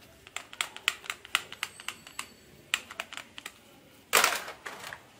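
Hard plastic toy guns clicking and clacking as a toy pistol is handled over the pile: a quick, irregular run of sharp clicks for about three seconds, then one louder clatter about four seconds in.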